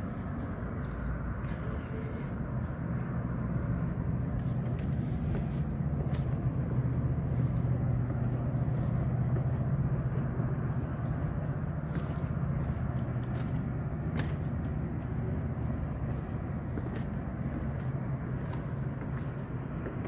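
Low rumble of a distant motor vehicle, building to its loudest in the middle and easing off again.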